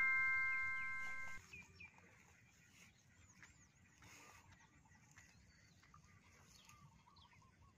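A bell-like chime of several ringing tones fades out and stops about a second and a half in. After that, faint bird chirps over near silence.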